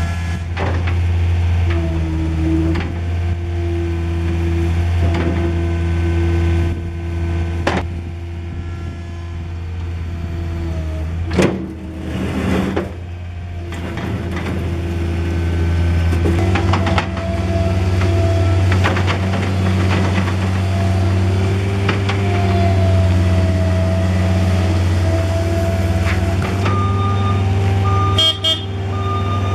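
Diesel engine of a 2011 John Deere 326D skid steer loader running steadily, its pitch shifting up and down as the machine is worked, with a few sharp knocks, the loudest about eleven seconds in. A high beeping, typical of a backup alarm, comes in near the end.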